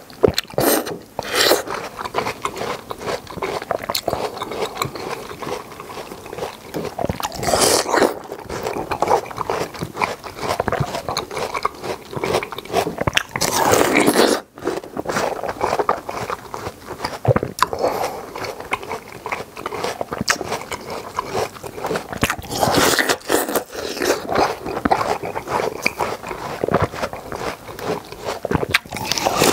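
Crunchy bites into watermelon and wet chewing, with a louder bite every few seconds.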